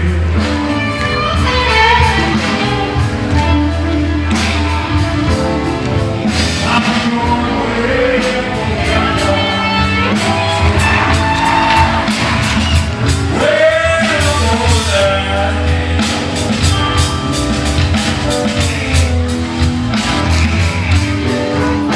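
Rock band playing a song with a singer: vocals over guitar, bass and a steady drum beat.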